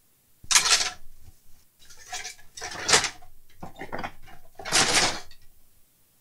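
Rummaging through stored parts and boxes while searching for a replacement connector socket, in about five short bursts of clattering and rattling.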